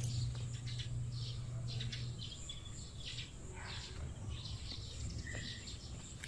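Birds chirping and calling in trees, with many short scattered calls over a thin steady high whine. A low hum underneath fades about two seconds in.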